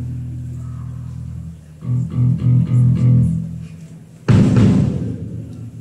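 Live student rock band with electric guitar, bass and drums: a held low note fades out, a run of short bass notes starts about two seconds in, and a loud crash of drums and the full band comes in about four seconds in, ringing down, as the song begins.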